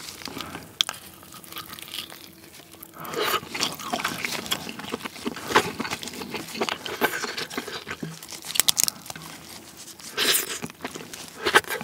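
Close-miked cooked king crab meat being torn apart and picked from the shell by gloved fingers: a steady run of wet crackles and small clicks, with louder clusters about three seconds in, midway and near the end, mixed with chewing as pieces go into the mouth.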